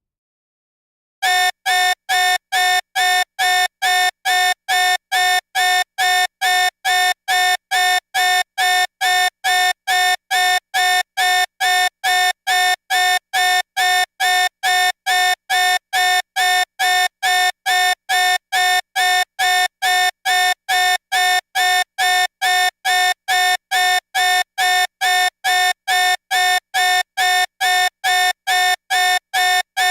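Electronic alarm beeping: a single buzzy tone pulsing on and off at an even pace of a little over two beeps a second, starting about a second in.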